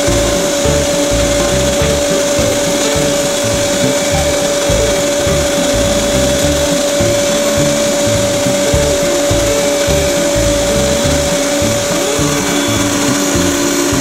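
Unold 8810 electric meat grinder motor running steadily with a constant whine while it pushes minced meat through the sausage-stuffing horn into a casing.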